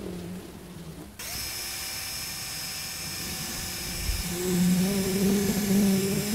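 Cordless drill with a wire wheel brush starting up about a second in and running steadily with a high whine, scrubbing charcoal out of the burnt inside of a hollowed log. It gets louder from about four seconds in.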